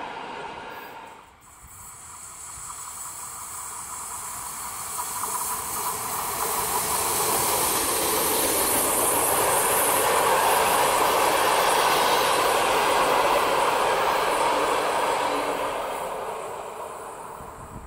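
Passenger train hauled by an electric locomotive passing close by: the rolling rumble and hiss of wheels on rails builds over several seconds, stays loud for a few seconds as the coaches go by, then fades as the train recedes. A short, more distant train sound comes before a sudden break about a second in.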